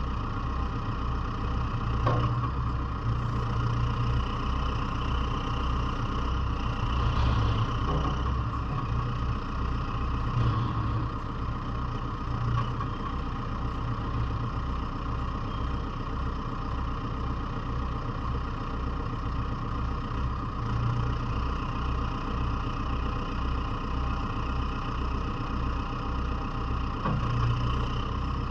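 The diesel engine of a JCB 3CX Sitemaster backhoe loader running steadily at idle, with an even low throb.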